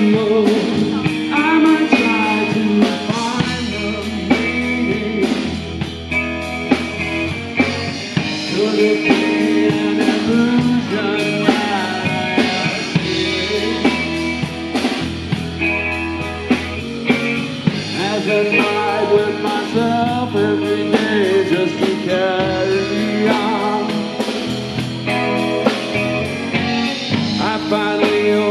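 Live rock trio playing: drum kit, bass and electric guitar, loud and continuous with a steady beat.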